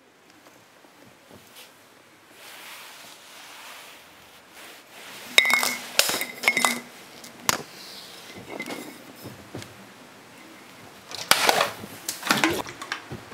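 Sharp clinks and knocks of hard objects, some with a short ringing tone, in two clusters, about five and eleven seconds in, over a faint hiss.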